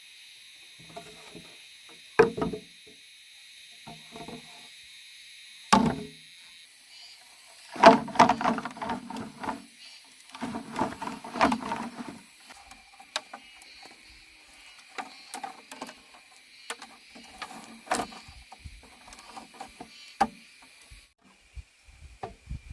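Scattered knocks and clatter, with two longer stretches of rattling about eight and eleven seconds in, over a steady high hiss that stops near the end.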